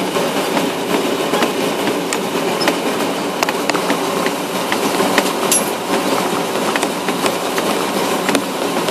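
A vehicle's tyres rolling across a timber plank bridge deck: a steady rumble with irregular clacks and knocks as the wheels run over the boards.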